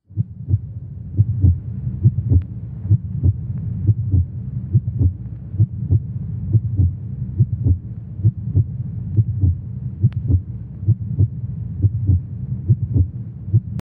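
Heartbeat sound effect: fast, steady low lub-dub thumps over a throbbing hum. It starts abruptly and cuts off suddenly just before the end.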